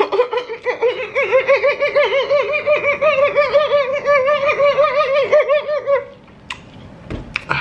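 A high-pitched laugh-like voice, held without a break for about six seconds with a fast, even warble in pitch, then stopping abruptly. A couple of faint clicks follow.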